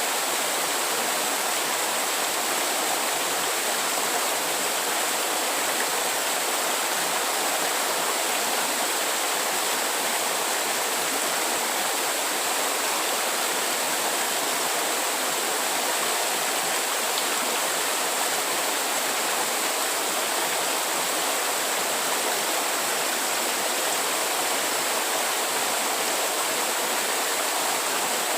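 Steady rushing of running water, even and unbroken, with a thin high steady tone on top.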